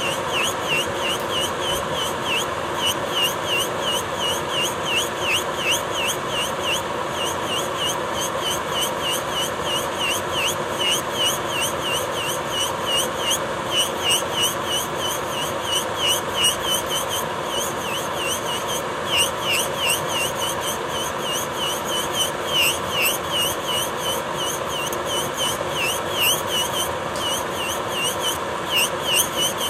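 Electric nail drill (e-file) spinning a Horico HO-042 power-off bit at 12,000 rpm, grinding down a thick layer of gel polish. Its steady whine dips briefly in pitch and recovers a couple of times a second as the bit is stroked across the nail.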